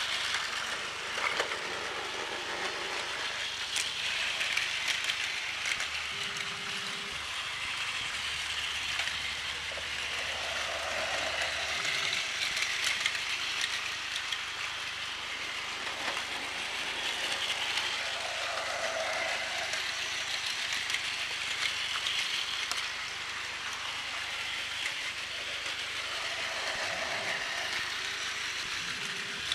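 Plarail battery-powered toy trains, including an E5 series Shinkansen, running on blue plastic track: small electric motors whirring and plastic wheels rattling with small clicks. The sound swells and fades every few seconds as trains pass close by.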